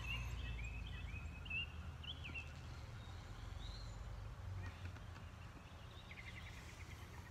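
Faint outdoor background: a bird chirping in short, quick notes over the first couple of seconds, then a few fainter chirps, over a steady low rumble of wind and distant noise.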